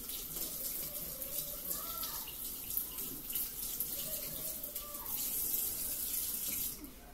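Kitchen sink tap running: a steady rush of water that shuts off suddenly near the end.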